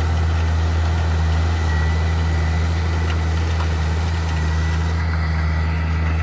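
An engine running steadily at a constant low drone.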